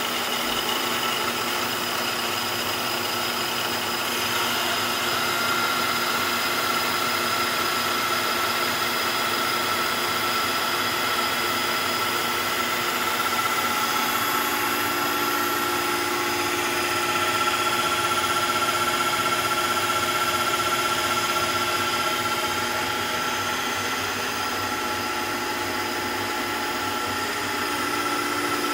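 A 6-inch grinding stone spinning on the Emco Maximat V10 mill spindle, grinding passes along a wood chipper blade: a steady machine whine over a constant grinding hiss.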